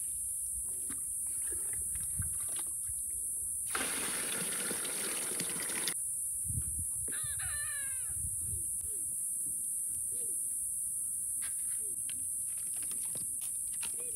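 A rooster crows once, about seven seconds in, followed by several short, soft clucking calls from chickens. A couple of seconds of rushing noise come before the crow.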